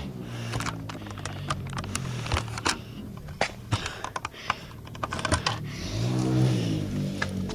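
Dirt bike engine revving up and down, strongest about six seconds in, with many sharp irregular clicks and taps close to the microphone throughout.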